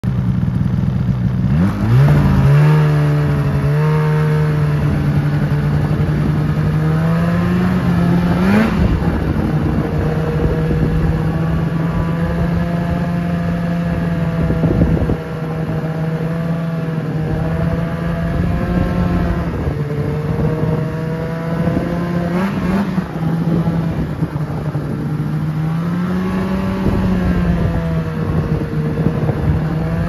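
Polaris Indy snowmobile engine revving up about two seconds in, then running at a steady slow cruising speed. Its revs briefly rise and fall a few times.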